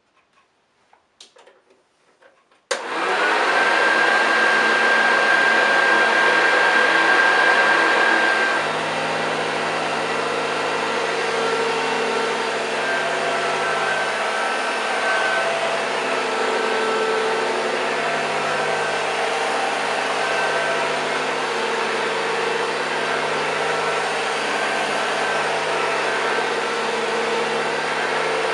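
1981 Hoover Junior U2128 hard-bag upright vacuum cleaner switched on about three seconds in, its motor starting at once and running with a steady high whine, sounding brand new. About eight seconds in the sound drops a little in level and a low hum comes in, then it runs on steadily.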